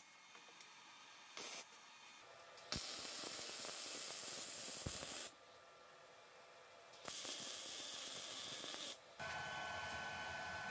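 Welding arc running in two stretches of steady hiss, about two and a half seconds and two seconds long, with a short pause between and a few brief bursts before them. Near the end this gives way to a different steady noise with a high whine.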